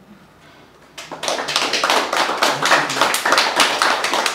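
Audience applauding, many hands clapping, starting about a second in after a short quiet pause.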